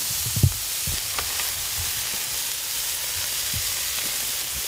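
Chicken breasts sizzling steadily in a frying pan over a portable gas stove, with a few soft knocks of the pan and utensils, the loudest about half a second in.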